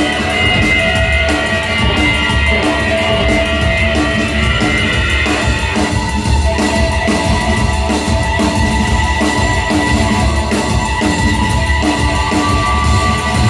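Live rock band playing an instrumental passage with no singing: a drum kit keeps a steady beat under guitar and held, sustained tones.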